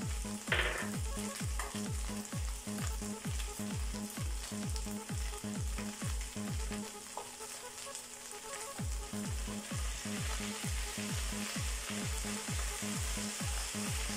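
Chicken and shredded vegetables sizzling as they stir-fry in a wok, a steady frying hiss. Background music with a steady beat about two and a half times a second runs underneath, dropping out briefly around the middle.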